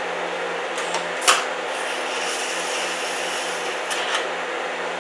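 TIG welding arc on a thin pulley: a crackling hiss from about two to four seconds in, with sharp clicks near where it starts and stops, the loudest one about a second in, over the welder's steady hum.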